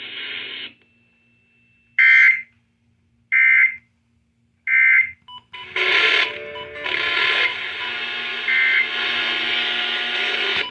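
Three short, loud digital data bursts of the Emergency Alert System's SAME code, about a second and a half apart: the end-of-message signal after a weather radio warning. A steady, harsh alarm-like tone follows and lasts about five seconds.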